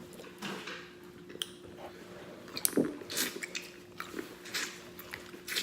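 Close-miked eating: a person biting into corn on the cob, wet chewing and lip smacking in short, irregular strokes. A faint steady hum runs underneath.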